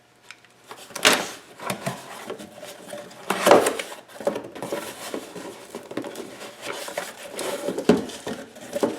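Box and packaging being handled and rustled while unpacking, with irregular scrapes and knocks; the loudest come about a second in, midway and near the end.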